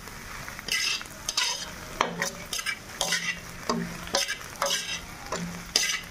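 Vegetables frying in a kadai, sizzling steadily, while a metal slotted spatula scrapes and tosses them across the pan in repeated strokes about every half second to second.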